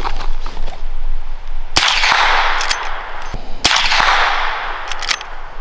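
Two shots from a suppressed lever-action rifle, about two seconds apart. Each is a sharp crack followed by a long fading echo, with a few light clicks between and after. The suppressor keeps the shots quiet for a rifle.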